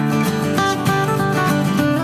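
Background music: plucked acoustic guitar playing a strummed, picked melody with a steady beat.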